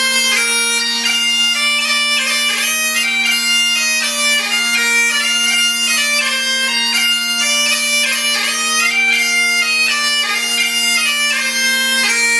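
Great Highland bagpipe played solo: steady drones held underneath while the chanter plays a melody with frequent note changes.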